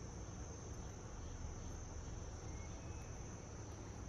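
Faint steady background hiss with a thin, constant high-pitched whine.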